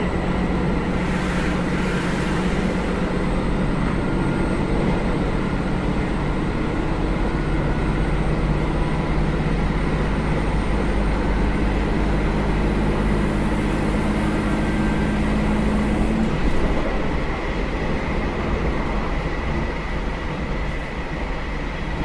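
On-board running sound of a JR Hokkaido KiHa 201 series diesel railcar under way: its diesel engine pulls under power over the steady rumble of the running train, with the engine note climbing slowly. About sixteen seconds in, the engine note drops away, leaving a slightly quieter running rumble.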